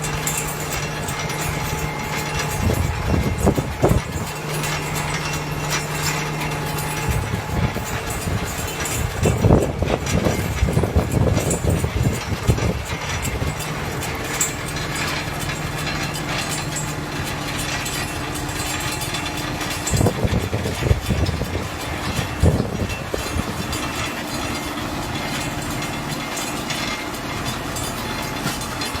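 Engine of a fence-installing machine running steadily, with louder bursts of knocking three times: at about three seconds, around ten seconds and around twenty-one seconds.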